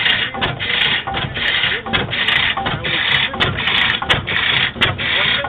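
Bessemer half-breed oilfield engine, an old steam engine converted to run on gas, running steadily with a rhythmic chuffing clatter about two to three times a second, punctuated by sharp clicks.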